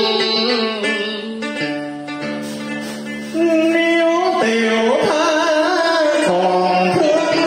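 Vietnamese cải lương music: plucked string instruments playing held notes that bend and slide in pitch. About a third of the way in the music gets louder and a wavering singing voice comes in.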